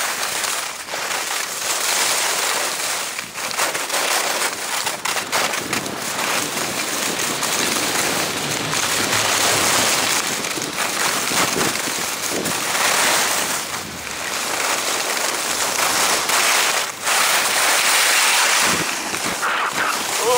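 Skis scraping and hissing over a hard, icy piste during a downhill run, the noise swelling and fading with each turn, with wind buffeting the microphone.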